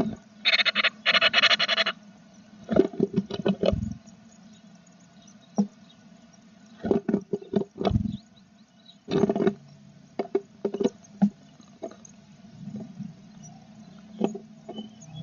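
Tit nestlings begging in the nest: a buzzy burst of high calls starting about half a second in and lasting over a second. Around it come scattered scratches and knocks of the birds moving about the nest.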